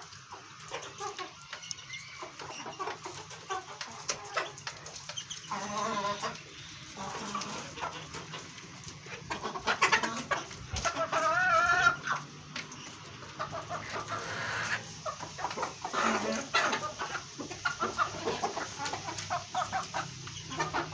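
Domestic chickens clucking and calling, with one longer, louder call about halfway through.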